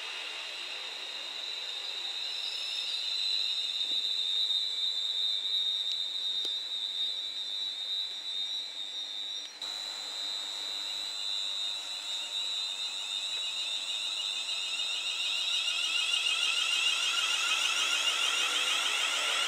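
Siemens Class 350 Desiro electric multiple units: a high-pitched electric traction whine made of several steady tones as one unit pulls away. After a cut, a second unit coming into the platform gives a wavering motor whine that grows louder near the end.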